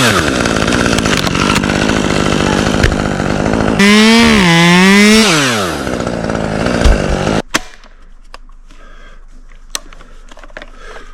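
Two-stroke Husqvarna chainsaw cutting at full throttle, its pitch rising and falling briefly about four to five seconds in. It cuts off sharply about seven seconds in, leaving a few faint clicks and cracks.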